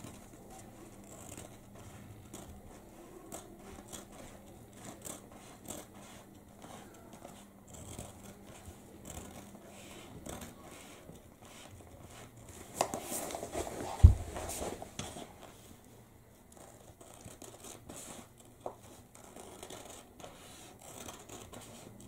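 A knife blade cutting through roller blind fabric in small scratchy strokes, with the stiff fabric crinkling as it is handled and rolled up. A louder rustle of the fabric comes about two thirds of the way through, with a single thump in the middle of it.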